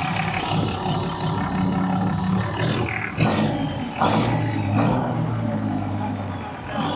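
Old John Deere excavator's diesel engine running just after a jump-start, its pitch dropping about three seconds in, with a few short thumps over it.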